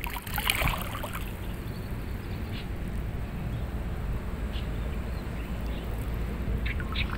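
Water sloshing and splashing around a person wading chest-deep as he moves and turns, with a burst of splashing about half a second in, over a steady low rumble of wind on the microphone.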